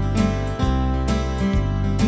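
Background music led by a strummed acoustic guitar, chords changing in an even rhythm.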